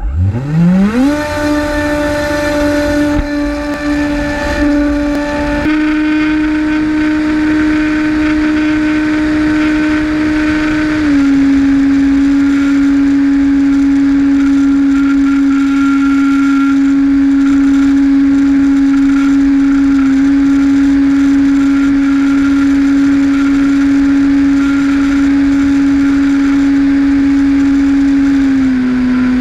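An RC plane's electric motor and propeller, heard from a camera mounted on the plane. It spins up from rest to a high steady whine within the first second, with extra rushing noise over the first few seconds. The pitch drops a little about eleven seconds in and again near the end.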